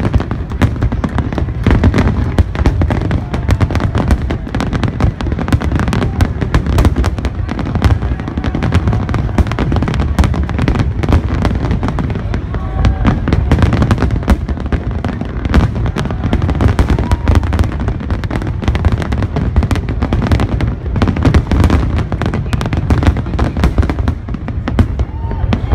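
Aerial firework shells bursting in a rapid, continuous barrage, the bangs packed so closely that they overlap with no pause.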